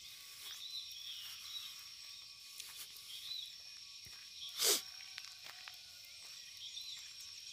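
Faint outdoor dawn ambience of small animals: a steady high-pitched drone with short chirping calls repeating about once a second. A short hiss about two-thirds of the way through is the loudest sound.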